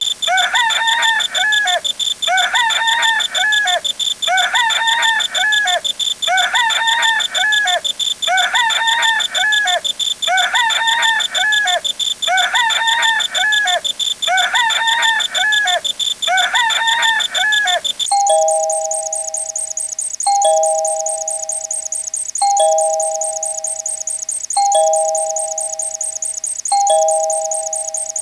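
A rooster-crow sound effect loops about every two seconds, nine times. About 18 seconds in it switches abruptly to a two-tone ding-dong doorbell chime, high note then low, repeating every couple of seconds. A steady high-pitched tone bed runs underneath.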